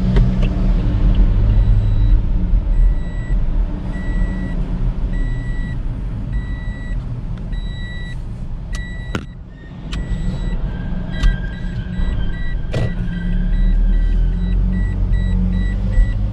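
Car interior while driving slowly through a car park: steady engine and tyre rumble. A regular high beep repeats about twice a second for several seconds, and there are two sharp knocks, one about halfway through and one a few seconds later.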